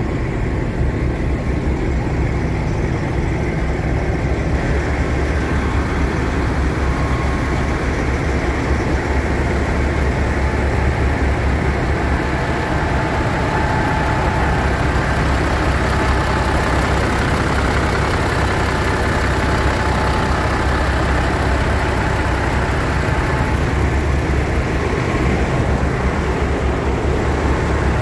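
Diesel semi-truck engine idling with a steady low rumble.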